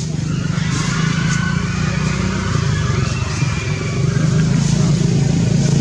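A motor engine running steadily, a low even hum. Faint thin higher sounds lie over it from about one to three seconds in.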